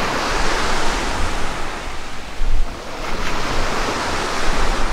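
Small sea waves breaking and washing up a pebble beach, a steady rush of surf, with low wind rumble on the microphone. A brief thump about two and a half seconds in is the loudest moment.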